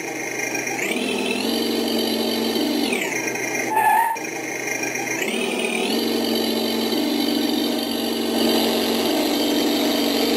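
Cheap RC car engine sound module playing a synthetic engine sound through two small box speakers, revved by its throttle control. The pitch rises about a second in and falls back near three seconds, with a short tone about four seconds in. It then rises again at about five and a half seconds and holds high.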